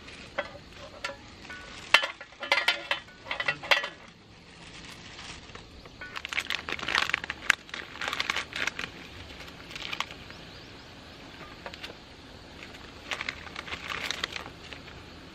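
Several sharp clicks and clatters of a metal mess tin being set on a portable butane stove, then the crackling rustle of a plastic instant-noodle packet being handled.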